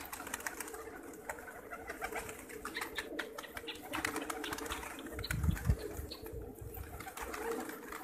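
A flock of Gulgasht pigeons cooing together in a steady low murmur, with many short scattered clicks among them. There is a brief low rumble a little past five seconds in.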